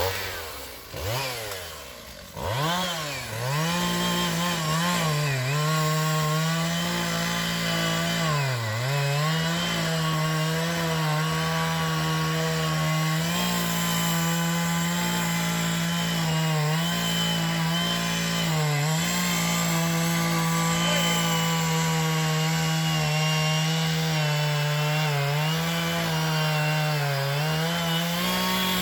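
Two-stroke chainsaw revved up in quick bursts, then held at full throttle while it cuts into a tree trunk. The engine note dips briefly now and then as the bar bogs in the wood.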